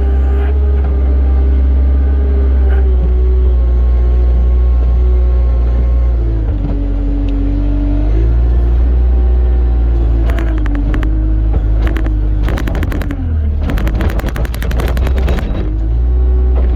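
Tractor engine running steadily under load, its pitch dropping for a couple of seconds about six seconds in and then picking up again. From about ten seconds in, bursts of rapid clattering join it.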